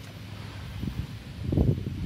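Wind buffeting the microphone: a low, uneven rumble that swells into a stronger gust about one and a half seconds in.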